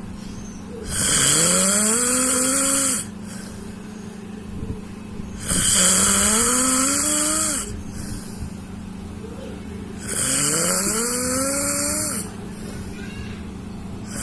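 Snoring: three loud snores about four and a half seconds apart, each lasting about two seconds, with a rising rasping tone in each and quieter gaps between.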